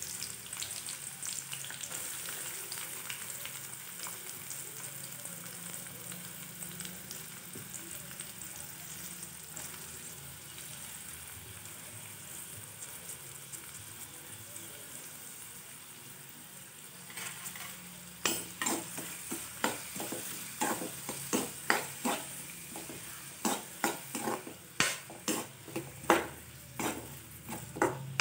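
Chopped onions sizzling in hot oil in a metal kadai, the hiss easing slowly. About two-thirds of the way through, a metal spoon starts stirring them, scraping and clicking against the pan about twice a second.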